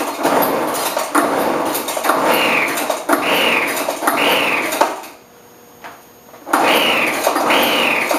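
Craftsman leaf blower being pull-started on full choke: the recoil starter cord is yanked about once a second, each pull turning the cold engine over with a short rising whirr, without it catching. The pulls stop for a moment about five seconds in, then resume.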